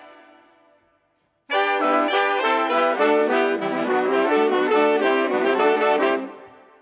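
Jazz big band's horn section of saxophones, trumpets and trombones playing a fast passage of punchy chords together. The band stops short twice: a phrase rings out over the first second, and after a brief gap a new phrase of about four and a half seconds enters and breaks off near the end, ringing out.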